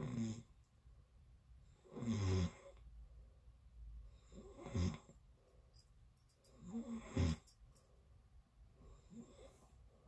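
A person snoring in their sleep, about one snore every two and a half seconds, five in all, the last one fainter.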